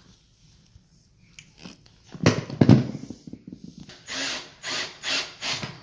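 Two loud knocks, then a power drill driving a screw in four short trigger bursts, fastening the re-covered seat to the dining chair's frame.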